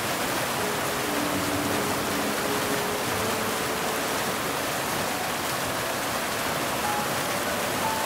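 Steady rushing hiss of waterfalls pouring into a pool. Faint sustained music notes sound underneath.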